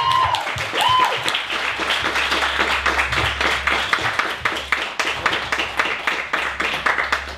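Audience applauding: a crowd clapping, dense and irregular, easing off slightly near the end.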